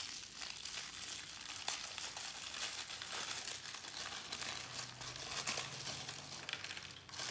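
Crinkly wrapping around a small toy accessory being pulled open and crumpled in the hands, a continuous run of rustling crackles.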